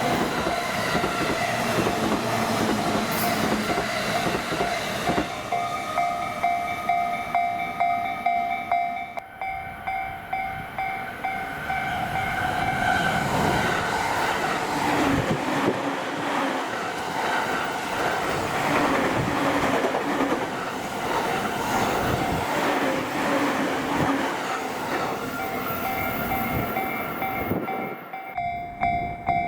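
Electric commuter trains run through a level crossing, their wheels clattering over the rail joints. The crossing's warning bell keeps ringing in a quick repeating pattern over the train noise.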